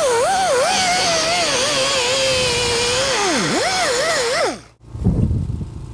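Pneumatic die grinder with a carbide rotary burr grinding the inside of a steel ring: a high whine that wavers as the burr bites and eases, sags deeply a little past halfway, then winds down and stops, followed by a brief low rumble.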